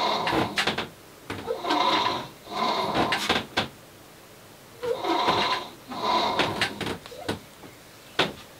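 Rope running through the pulley of a tillering tree in a series of short pulls as a longbow is drawn down to check its tiller. Each pull is a squeaking whir of about half a second, with a few sharp clicks between the pulls.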